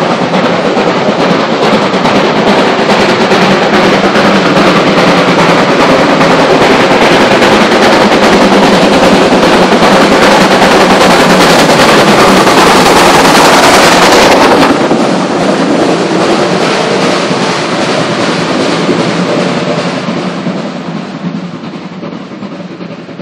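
Two-cylinder steam locomotive hauling a freight train past, its exhaust beats building to a peak. About fifteen seconds in the sound suddenly turns duller as the locomotive goes by, and the train rolls away, fading near the end.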